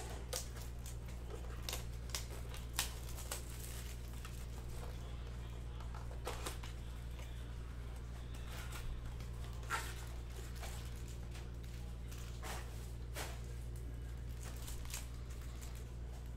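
Plastic shrink-wrap torn off trading-card blaster boxes by its tear strip, crinkling, then cardboard box flaps opened and foil card packs handled: scattered crackles and light taps over a steady low hum.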